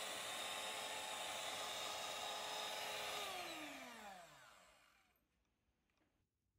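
Electric hand mixer whipping a thick white cream, its motor whining steadily. A little after three seconds the whine drops in pitch as the motor winds down, dying out about five seconds in.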